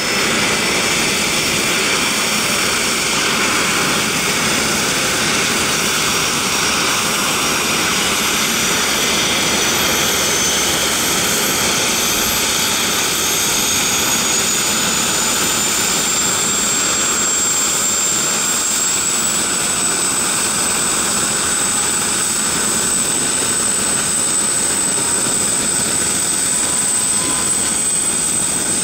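Bell 412EP helicopter's twin turboshaft engines running on the ground, a steady loud rush under a high turbine whine. The whine rises in pitch from about twelve to twenty seconds in as the engines speed up, then holds steady.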